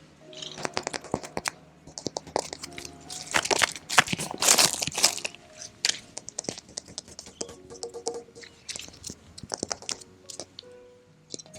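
ASMR tapping and scratching with fingers on an excavator's body: a rapid run of sharp taps and clicks, with a rougher stretch of scratching about four to five seconds in. Faint background music runs underneath.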